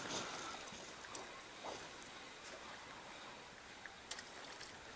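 Faint river water lapping and running along the hull of an inflatable PVC boat, with a few light knocks.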